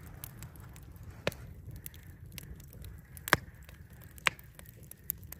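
Wood fire crackling in a steel fire pit, with a few sharp pops, the loudest about three seconds in, over a low rumble.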